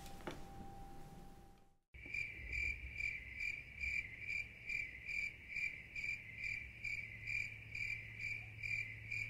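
Cricket chirping in an even, steady rhythm of about two chirps a second over a low hum, starting about two seconds in after a moment of faint room tone that fades to silence.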